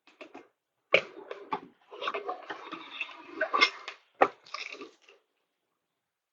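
Mechanical parts being handled on a workbench: sharp knocks about a second in and again after four seconds, with rattling and scraping between them.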